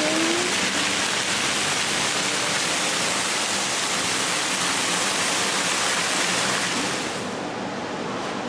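Steady rush of falling water, like a waterfall or water feature pouring into a pond. About seven seconds in it turns a little quieter and duller.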